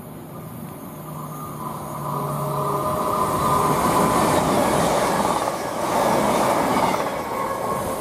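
CrossCountry Voyager diesel multiple unit passing through the station at speed. The noise of its engines and wheels on the rails builds over the first few seconds, is loudest in the middle, then fades as it goes away, with a steady whine running through it.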